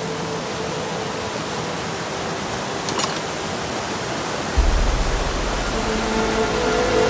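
Mountain stream cascading over boulders: a steady rush of white water. About two-thirds of the way through, background music comes in with a deep bass note.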